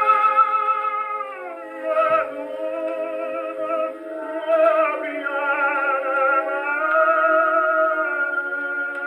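A 1923 Brunswick 78 record played on a Columbia 113a portable wind-up gramophone: an operatic tenor sings long held notes with vibrato over an accompaniment. The sound is thin, with no bass, and there is a single click about two seconds in.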